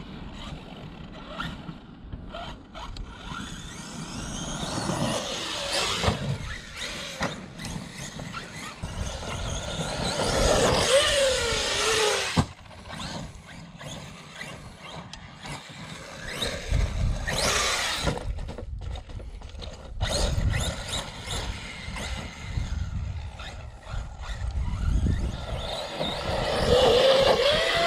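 Electric 1/8-scale RC truck, a Traxxas Sledge, driven in throttle bursts, its motor whine rising and falling in pitch and loudest about halfway through and near the end. The owner takes the motor's rough sound for a failing motor.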